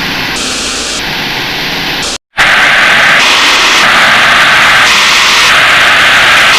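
Harsh, very loud static-like noise that pulses in blocks a little over half a second long. It cuts out for a moment about two seconds in, then comes back louder.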